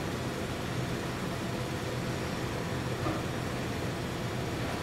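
Steady low mechanical hum under an even rushing noise, unchanging throughout with no distinct events.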